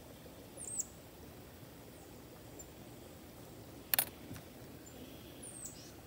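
Two short, high bird chirps that sweep downward, about a second in and near the end, over a faint outdoor background. About four seconds in comes a sharp click, the loudest sound, from the metal dissecting tools.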